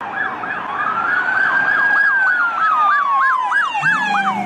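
Police car siren: a fast yelp sweeping up and down about three to four times a second, over a slower wailing tone that rises and then falls. A low steady tone comes in near the end.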